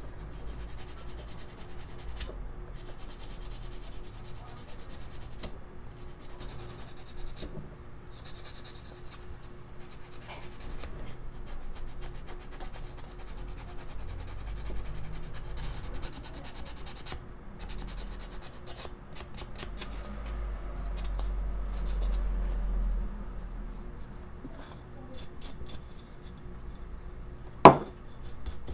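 Hand sanding with 120-grit sandpaper: fast back-and-forth scratchy rubbing over a small carved basswood piece. One sharp knock near the end.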